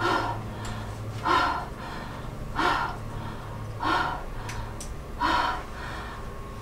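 A woman gasping sharply in an even rhythm, five times, about once every second and a third, over a low steady hum.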